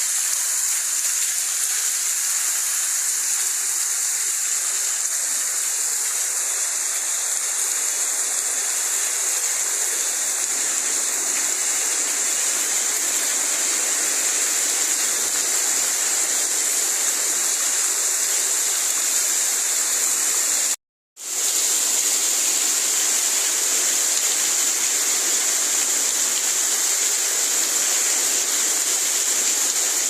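Steady rushing hiss of rainwater, strongest in the treble. It cuts out completely for a split moment about two-thirds of the way through, then picks straight up again.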